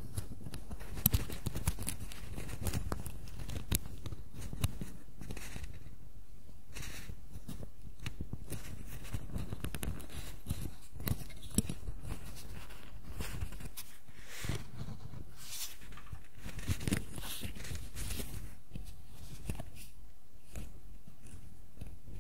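Hard plastic miniature parts handled and pressed together by fingers close to the microphone: irregular small clicks and scrapes, busiest in the first few seconds, over a steady low hum.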